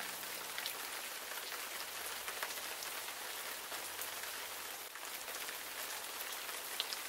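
Steady rain, a soft even hiss with occasional sharper drop ticks.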